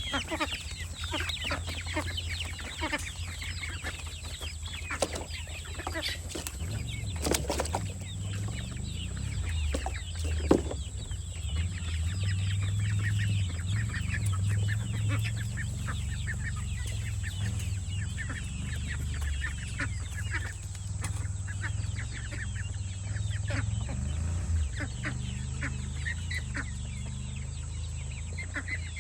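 Chickens clucking and chattering continuously, with a few sharp knocks in the first third and a low rumble underneath.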